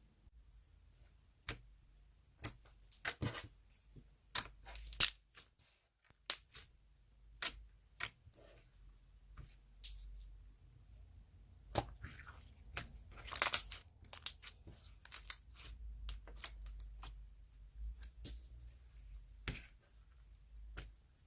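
Soft clay slime being handled, giving an irregular run of short sticky pops and crackles, some in quick clusters, with the loudest cluster a little past the middle.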